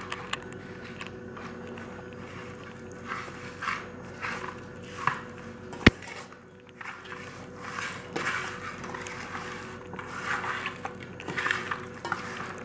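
A hand rubbing dry spice masala into raw chicken pieces in a steel bowl: irregular wet rubbing and squishing, with one sharp click about six seconds in. A faint steady hum lies underneath.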